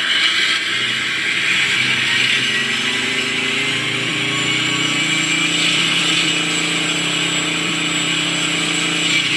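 Simulated Challenger 2 tank engine from an RC tank's TBS Mini sound unit, played through its onboard speaker at full throttle. A steady engine drone climbs a little in the first few seconds and then holds, with a steady hiss above it.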